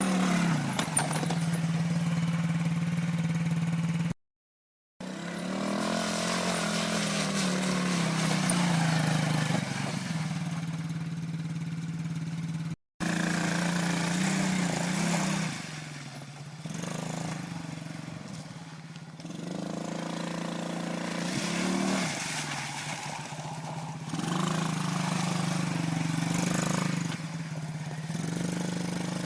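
ATV engine being ridden, its revs rising and falling again and again every few seconds. The sound cuts out twice: for nearly a second about four seconds in, and for an instant about thirteen seconds in.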